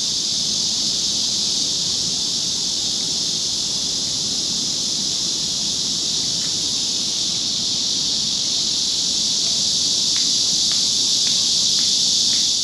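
Cicadas in full summer chorus: a loud, steady, high-pitched buzz that never lets up, with a few faint ticks near the end.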